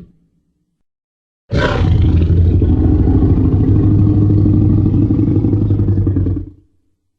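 Tyrannosaurus rex roar sound effect. After a second and a half of silence, one long, deep roar starts sharply, holds for about five seconds, then fades away.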